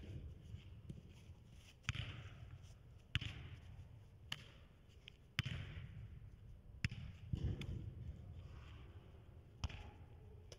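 Football (soccer ball) being kicked back and forth between two players: a series of sharp kicks, about one every second or so, each followed by a short echo in a large indoor hall.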